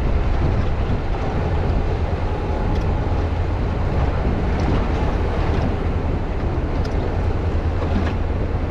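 Boat under way on open water: a steady low engine drone with wind buffeting the microphone.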